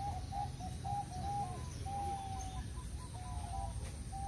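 Zebra doves (perkutut) cooing: a quick run of short cooing notes, then a couple of longer drawn-out coos, over a low steady rumble.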